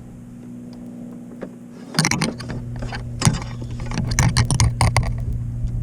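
A just-caught bass being handled and measured on a boat, with sharp knocks and rattling clatter starting about two seconds in, over a steady low hum.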